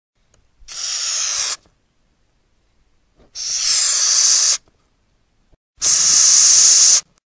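Madagascar hissing cockroach (Gromphadorhina portentosa) hissing three times, each a high, breathy hiss lasting about a second, with short silences between. The hiss is air forced out through the breathing pores on its abdomen.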